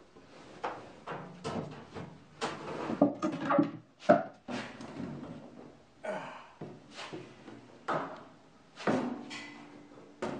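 Knocks, scrapes and clunks of a heavy cast-iron table saw being levered and tipped off a trailer bed down a wooden board, coming irregularly, with the sharpest knocks about three and four seconds in.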